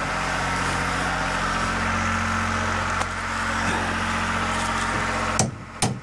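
Small portable generator engine running steadily. About five seconds in the engine sound drops away and two sharp knocks follow.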